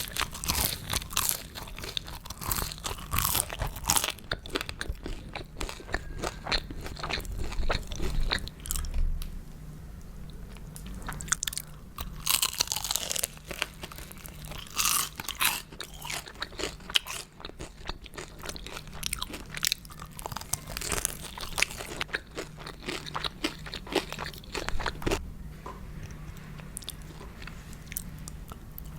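Crunchy food bitten and chewed close to the microphone, in ASMR eating style: a dense, irregular run of crisp crunches that thins out briefly a little past the middle.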